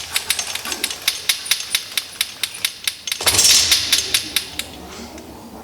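Sampling-gauge winder clicking steadily, about four clicks a second, as its reel turns to lower the sampler. A louder rustling burst comes about three seconds in, and the clicking stops near the end.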